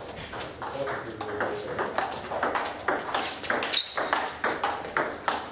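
Table tennis rally: the celluloid/plastic ball clicking in quick succession off the bats and the table, about four to six clicks a second.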